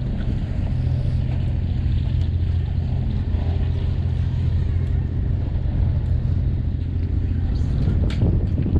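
Passenger ferry's diesel engine running with a steady low drone while under way, mixed with wind and water noise.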